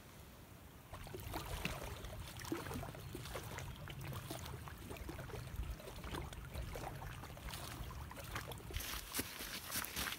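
Small wind-driven waves lapping and splashing irregularly against a lakeshore, starting about a second in, over a low rumble of wind, and getting busier near the end.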